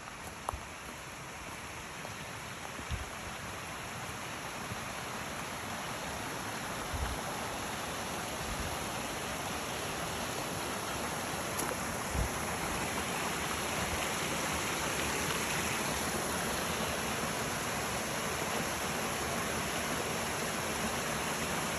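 Rushing mountain creek, a steady flow of water that grows gradually louder, with a few soft low thumps in the first half.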